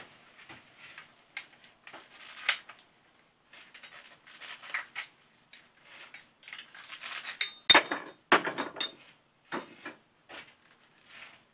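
Scattered metallic clinks and knocks of hand tools and metal parts being handled at a workbench. There is a sharp clink about two and a half seconds in, and the loudest run of knocks comes around eight seconds in.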